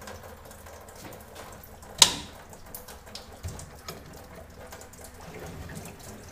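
Small clicks and taps of hand tools working on parts in a car's engine bay, with one sharp clank about two seconds in.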